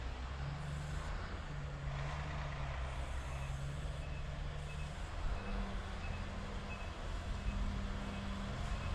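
Diesel engine of heavy snow-removal machinery running, its engine note stepping up and down, with a reversing alarm beeping at a steady pace, about one and a half beeps a second, from about three seconds in.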